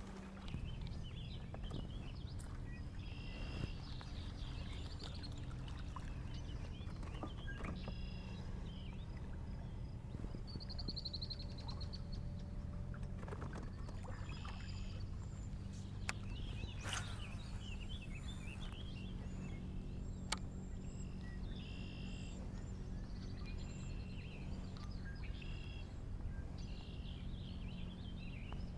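Birds singing and calling again and again, short chirping phrases with a brief trill about a third of the way in, over a steady low hum and a few faint clicks.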